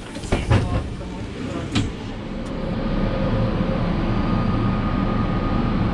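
A few knocks in the first two seconds, then the steady hum of a passenger train standing at a station, with a faint high whine. The hum gets a little louder about halfway through.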